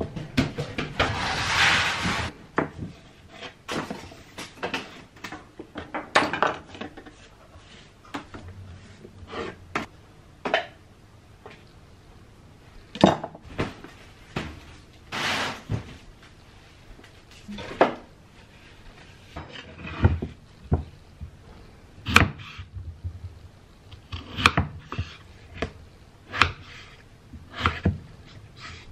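Kitchen handling sounds: scattered knocks and clatters of utensils and dishes, with a short rustle near the start and another midway. In the last few seconds a kitchen knife slices through peeled potatoes into a bamboo cutting board, a run of even knocks.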